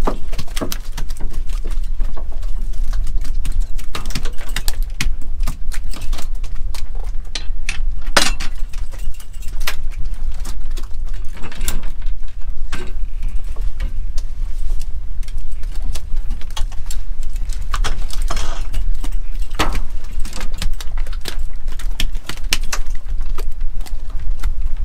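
Irregular clinks, clicks and knocks of cod jigging gear and fish being handled on an aluminium boat deck, over a steady low rumble.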